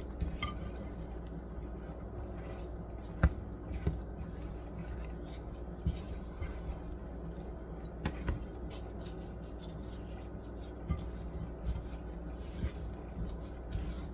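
Light scraping and handling of buttermilk biscuit dough in a mixing bowl, with a few sharper knocks of the utensil or bowl, about 3 and 8 seconds in, over a steady low room hum.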